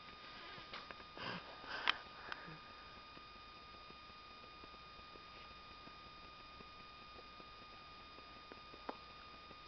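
A person sniffing faintly a few times, about one to two seconds in, close to the microphone. Otherwise near-quiet room tone with a faint steady high whine and a small tick near the end.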